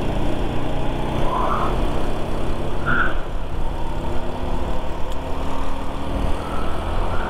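Motor scooter riding along at steady speed: a continuous engine drone with wind and road rumble on the microphone.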